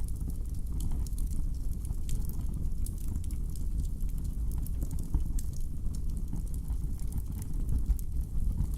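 Wood fire burning in a fireplace: a steady low rumble with frequent small, sharp crackles and pops.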